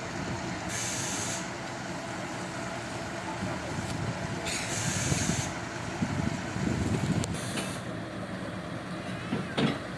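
Heavy diesel engines running steadily, swelling in the middle, with three short bursts of air hiss and a sharp knock near the end.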